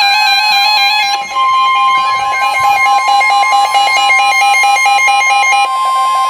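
Weather radio receivers sounding their beeping two-pitch alert alarms. About a second in they are joined by the steady NOAA Weather Radio 1050 Hz warning alarm tone, the broadcast signal that a warning message follows.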